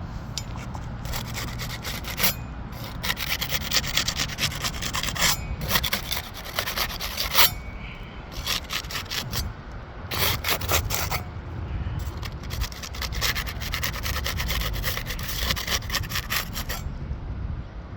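A flat metal tool scraping and rasping against asphalt roof shingles in repeated runs of quick strokes, separated by short pauses: the tool is being worked under the shingles to break them loose for removal.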